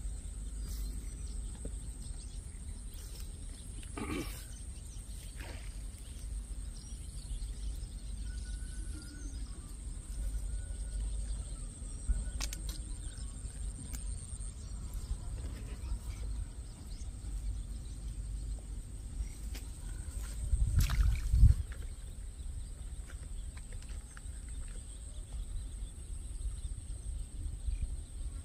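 Outdoor ambience of a steady high insect drone over a low rumble, with scattered small clicks and a brief louder low thump about twenty seconds in.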